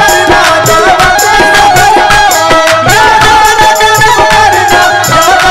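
Qawwali music: harmonium playing held notes, with hand-drum percussion keeping a steady beat and voices singing over it.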